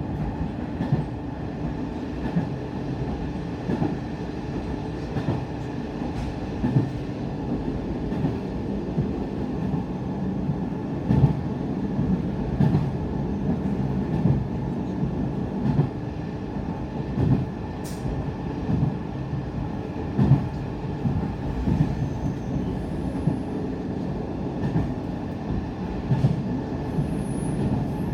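Sanriku Railway diesel railcar running along the line, heard from inside the car: a steady engine and wheel drone with scattered knocks from the rails. Faint, brief high squeals come in near the end.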